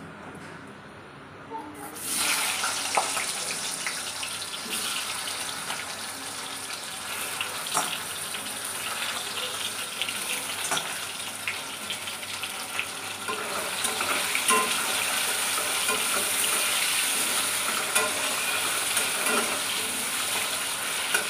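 Potato wedges going into hot oil in an iron kadhai about two seconds in, then sizzling steadily with scattered crackling pops as they fry.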